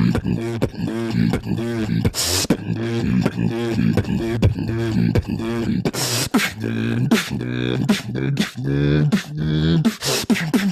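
Live beatboxing into a microphone: a wobbling, pitched bass line repeating about twice a second, punctuated by sharp snare-like hits. About six seconds in, the bass pattern changes and drops lower.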